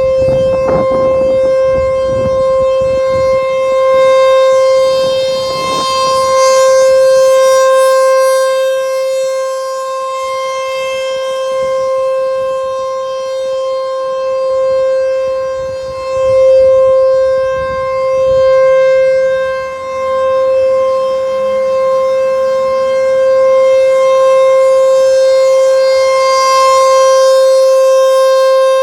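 ASC T-128 electronic rotating outdoor warning siren sounding a steady single-pitch alert tone that does not rise or fall in pitch, its loudness swelling and fading every few seconds as the horn rotates.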